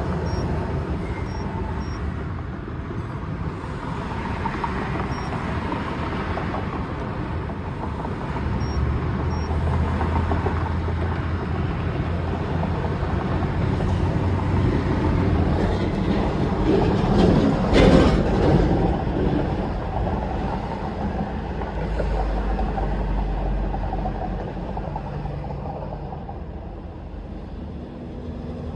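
2013 Mercedes GL450 in motion: a steady low rumble of engine and road noise, with a louder clattering jolt about seventeen seconds in.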